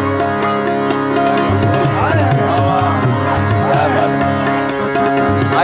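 Instrumental ghazal interlude: a sitar plays a melody with bending, sliding notes over a steady harmonium drone, with tabla accompaniment.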